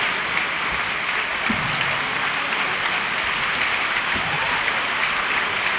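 Large theatre audience applauding steadily: a dense, even wash of clapping.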